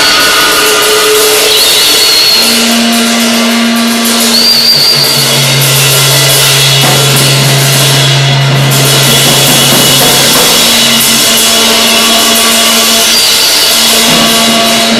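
Loud, dense noise music: drums and a cymbal run through delay and amplifiers, making a constant wash of hiss. Low droning tones sit under it, each held for several seconds before giving way to another.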